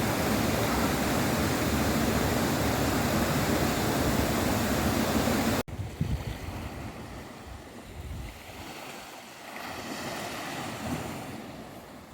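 Sea surf and wind noise: a loud, steady rush for about the first half, then a sudden cut to quieter waves washing in and out.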